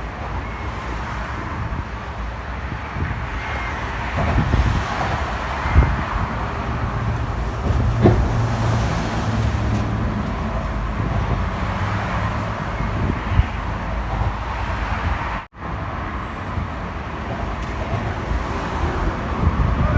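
Steady road traffic noise: cars running past with a continuous low rumble and hiss, broken by a couple of short knocks about six and eight seconds in and a brief dropout of all sound near the end.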